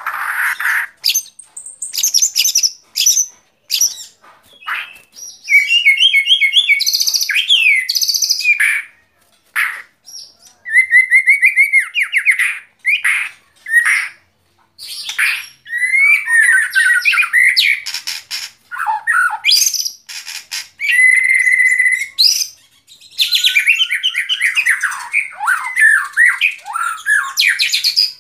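White-rumped shama singing a long run of varied phrases: clear whistles, fast trills and rapidly repeated notes, with short pauses between phrases.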